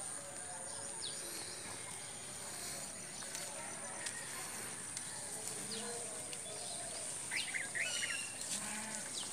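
Outdoor rural ambience: birds chirping in short falling calls, with a brief flurry of calls near the end, over a steady high-pitched whine and a faint murmur of distant voices.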